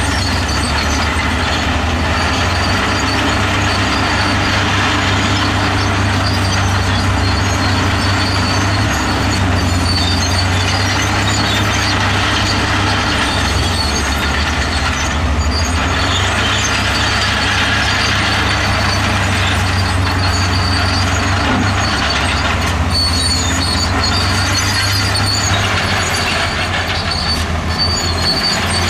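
Bulldozer's diesel engine running steadily under load, with the clank of its steel tracks and high-pitched squeaks from the track gear.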